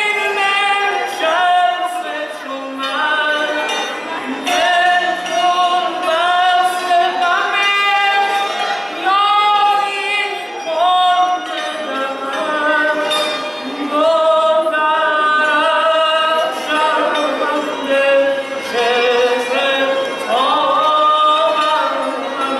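A voice singing a slow, ornamented melody of long held notes that slide up into pitch, over the struck strings of a santur (Persian hammered dulcimer).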